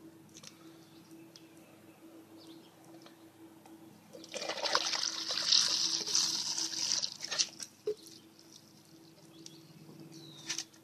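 Liquid sludge poured into a log-skidder inner tube, a splashing pour lasting about three seconds, starting about four seconds in, with a few faint clicks before and after.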